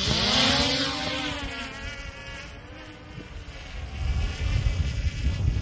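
DJI Mini 3 Pro drone's four propellers spinning up for takeoff: a buzzing whine that rises in pitch as it lifts off, then fades as the drone climbs away.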